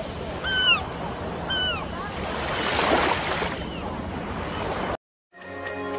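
A bird's short whistled call, three times over a second or so apart, over a steady rushing noise that swells about three seconds in. The sound cuts out near the end and music begins.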